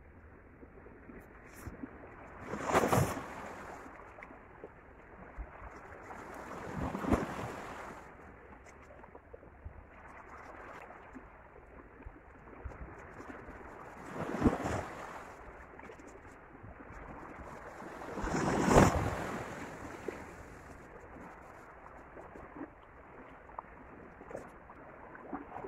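Small sea waves washing and splashing against shoreline rocks: a steady low wash with four louder surges a few seconds apart.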